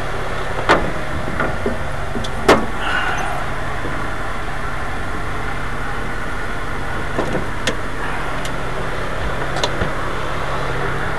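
Sharp clicks and clacks of a metal dockside shore-power box and a shore-power plug being handled, the loudest about two and a half seconds in, over a steady engine hum.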